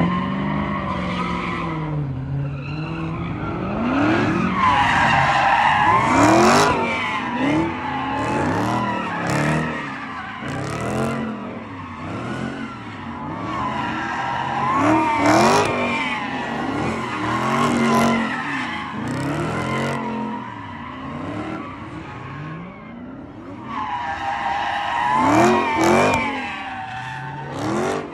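A car drifting in circles: its tires squeal in long, wavering screeches while the engine revs up and down again and again.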